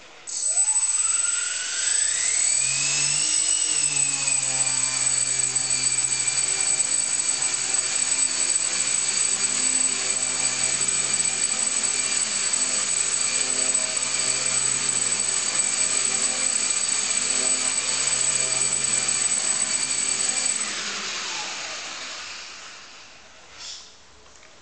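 Brushless motor driving a small RC airplane propeller: it spins up with a rising whine over about three seconds and holds a steady high-speed whine. It then winds down with a falling pitch near the end. A faint knock follows.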